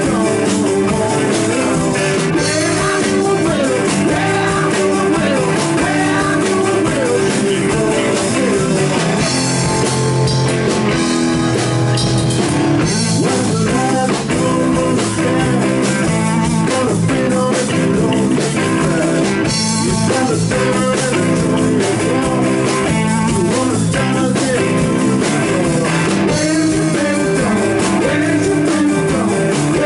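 Blues rock band playing live and loud, with amplified electric guitar, bass guitar and drum kit.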